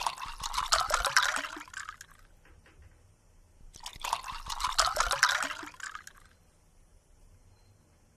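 A cat lapping water from a plastic bucket: two bursts of quick wet laps, each about two seconds long, with a pause between.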